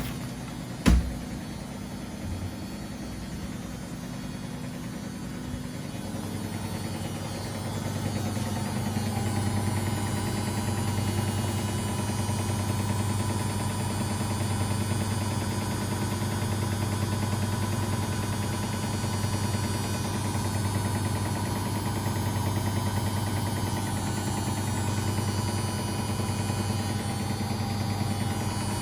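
Household washing machines and tumble dryers running: a steady motor hum that grows louder about seven seconds in, after a sharp click about a second in.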